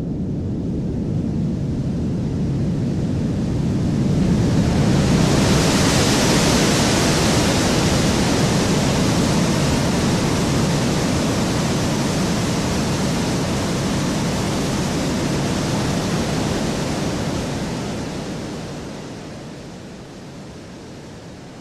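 Layered Niagara Falls waterfall recordings, heavily equalized, played together as the core of a designed tsunami wave: a deep, muffled rushing rumble that builds, a bright hissing wash coming in about four seconds in where the wave breaks, and a long even rush that fades away over the last few seconds as the wave's tail.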